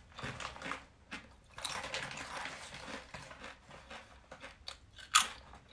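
Potato chips being bitten and chewed: irregular crisp crunches, with a louder crunch about five seconds in.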